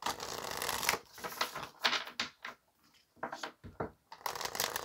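A deck of oracle cards being shuffled by hand: spells of rustling and clicking as the cards slide against each other, with short pauses between them.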